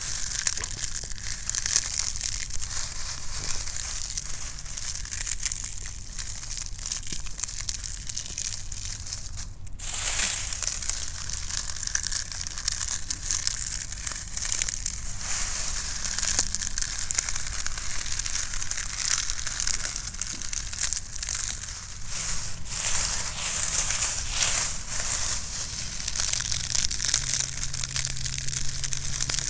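Dry leaves being crunched and crushed, a dense, continuous crackling with a brief break just before ten seconds in.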